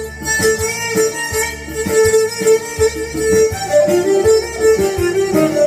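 Violin playing a Cretan folk melody between sung verses, over a rhythmic accompaniment that beats about twice a second.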